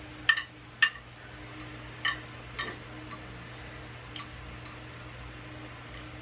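A few sharp clicks and taps of eating utensils against a dish while eating sushi, four in the first three seconds and one more a little after four seconds, over a faint steady hum.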